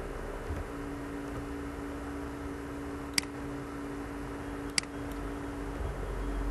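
Steady low hum and hiss with two sharp computer clicks, about a second and a half apart.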